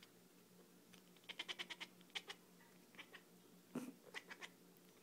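Cat making short, high-pitched, dolphin-like squeaks in two quick runs, the sound she makes when she sees a laser dot.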